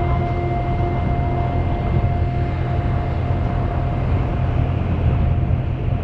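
Strong wind buffeting the microphone, a steady low rumble, with a faint steady high tone above it.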